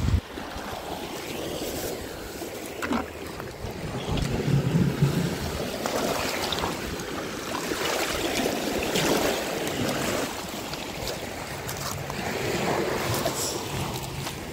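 Seawater sloshing in the shallows of a pebble beach as a plastic bucket is dipped in and filled, with small waves washing over the stones. A few pebbles crunch underfoot.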